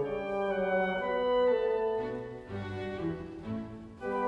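Background music: a slow orchestral piece with bowed strings playing long held notes that move from one chord to the next.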